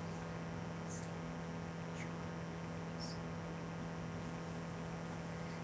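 Steady low electrical hum and hiss, with a faint short high chirp about once a second in the first three seconds.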